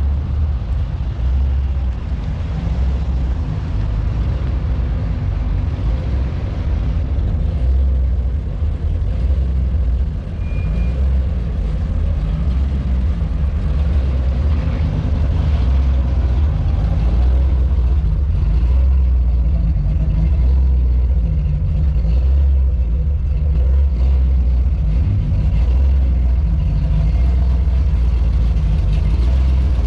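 Low, steady rumble of car engines cruising, swelling and easing without sharp revs.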